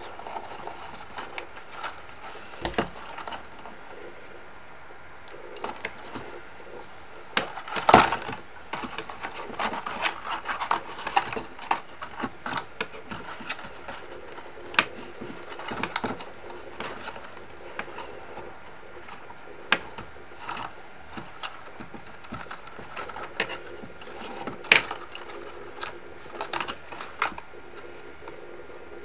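Stiff card being handled and pressed together by hand: irregular crinkles, taps and clicks of paper card, the sharpest about eight seconds in and again about twenty-five seconds in.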